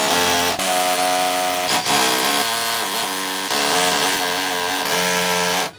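Electric power tool running, its motor pitch dipping and recovering several times under load. It cuts off abruptly near the end.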